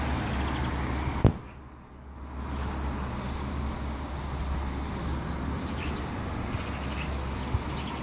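Steady town ambience of distant road traffic noise with a deep rumble. A single sharp knock comes about a second in, after which the noise briefly drops before returning.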